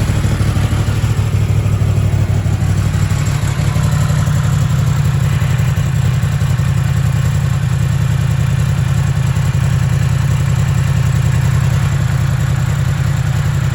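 2016 Yamaha R1S's crossplane inline-four engine idling steadily through the stock exhaust with its catalytic converters.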